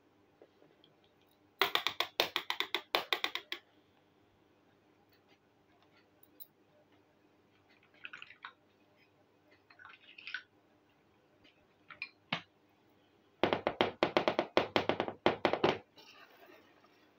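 Hands handling miniature toy dishes and pots on a table: two runs of rapid, sharp clicking taps, each about two seconds long, one early and one near the end, with a few softer clicks and rustles between as small pieces are set down.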